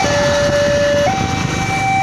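Railway level-crossing warning alarm sounding its two-tone signal: a lower tone, then a higher tone about a second in, each held for about a second. This is the signal that a train is passing and the road is closed. Under it is a low rumble from the train and the traffic.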